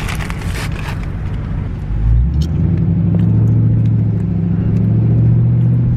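Car engine and road noise heard from inside the cabin while driving. The low engine drone grows louder about two seconds in and holds steady, with some rustling in the first second.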